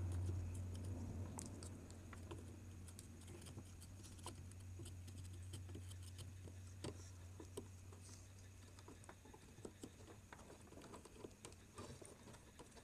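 Faint, scattered small clicks and taps of a soldering iron and a circuit board being handled while solder joints are worked, over a low hum that fades away over the first few seconds.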